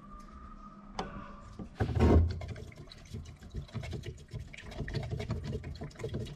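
A wooden stick stirring white paint thinned with acetone and hardener in a metal tin: a loud knock about two seconds in, then a busy run of scraping, clicking and sloshing as the stick works the thick liquid against the tin's sides.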